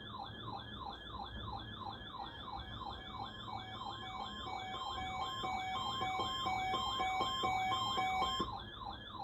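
Weather radio receiver's electronic siren alarm: a fast, evenly repeating wail of about three cycles a second, set off by the weekly test of the SAME alert coding. From about a third of the way in until near the end, a second alarm of two alternating beep tones sounds over it.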